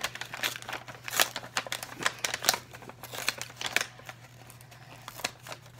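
Brown paper candy bag being worked open by hand: a run of sharp crinkling and rustling crackles in clusters, thinning out over the last second or two.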